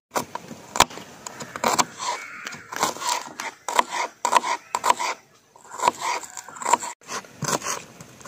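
Knife slicing shallots on a cutting board: a quick, irregular run of sharp taps as the blade cuts through each small onion and strikes the board.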